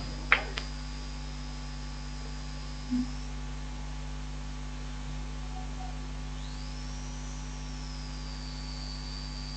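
Steady electrical mains hum from the live commentary sound system, with a faint thin high tone above it that bends up and settles back about two-thirds of the way through.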